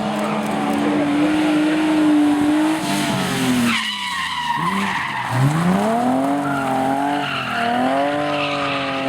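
BMW E30 rally car engine run hard at high revs with tyres skidding. About four seconds in the revs drop away, then climb again and hold high.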